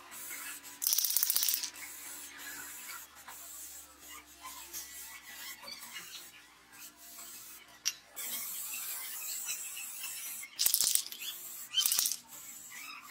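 Aerosol spray-paint can hissing in short bursts as paint is sprayed onto metal parts: a burst of about a second near the start and two shorter bursts near the end, with faint clicks and rustling in between.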